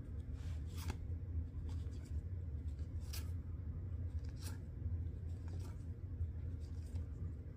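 Hockey trading cards being flipped through by hand, slid one off the stack and behind another, giving a few soft, brief swishes of card on card over a low steady hum.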